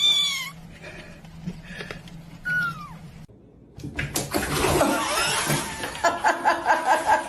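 A house cat meowing: one falling cry at the start and a shorter falling mew about two and a half seconds in, then a noisier stretch of cat sounds near the end.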